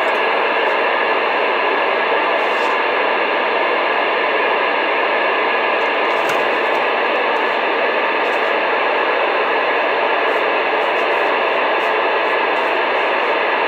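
CB radio receiver hissing steadily through its speaker with the squelch open between transmissions: the channel is empty and only a weak background signal comes in. A few faint crackles of static are heard.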